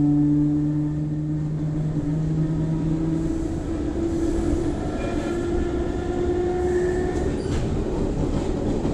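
Motor of a CPTM Série 4400 electric commuter train rumbling. A steady low hum stops about three seconds in, while a higher tone rises slowly in pitch, and higher whines join about halfway through.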